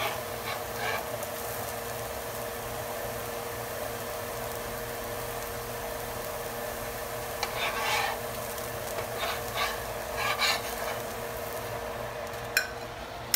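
Dosa sizzling on a hot griddle over a steady hum. A metal spatula scrapes against the griddle in short bursts about halfway through and again a couple of seconds later as the dosa is loosened and lifted. A sharp click comes near the end.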